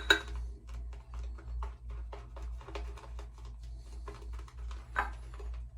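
Shaving brush whipping soap lather in a shaving bowl: a quick run of soft wet clicks as it swirls, with one louder clink against the bowl about five seconds in.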